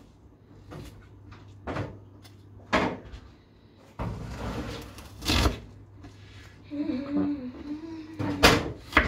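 Kitchen handling sounds: several separate knocks and bumps, like cupboard doors, a drawer or a bin lid being moved and shut, with one loud bump near the middle and another near the end.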